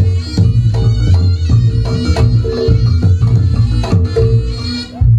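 Live reog gamelan music, percussion-led: a fast run of kendang drum strokes over gong-chime beats. There is a short lull just before a strong stroke near the end.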